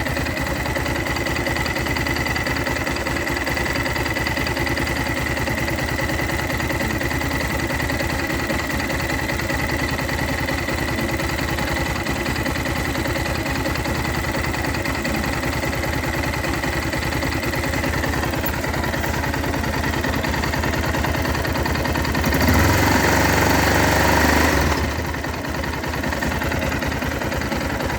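Yamaha Ténéré 660 single-cylinder engine idling steadily, with a high steady whine that fades after about 18 seconds; this is the noise in the engine the owner is checking after reassembly. About 22 seconds in, it gets louder and harsher for roughly two seconds, then settles back to idle.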